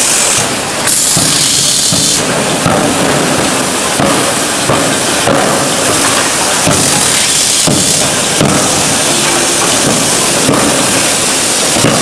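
Shaft forging hammer working a red-hot steel bar: a loud, dense clatter of rapid blows with irregular heavier knocks. Two bursts of loud hissing sound in the first two seconds.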